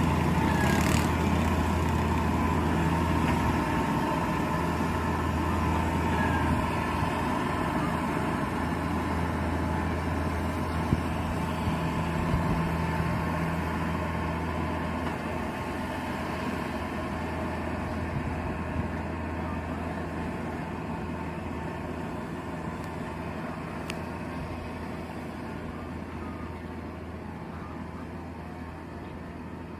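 Engine of a Kubota rice combine harvester running steadily with a deep hum, gradually fading as the distance grows.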